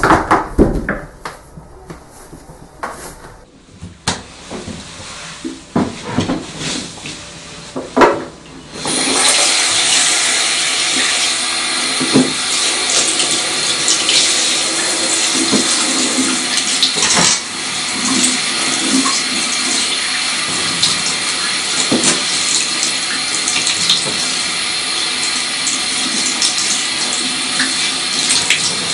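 Handheld bathroom shower spraying water onto a cat and the floor of a bathtub: a steady hiss of spray that starts about nine seconds in, after a few knocks and thumps.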